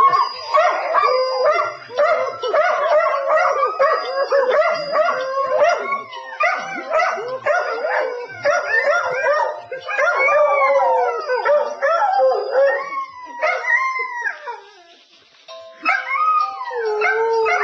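Two pet dogs howling along to a phone ringtone, their wavering howls overlapping, with the ringtone faintly audible underneath. The howling breaks off briefly about 15 seconds in, then starts again.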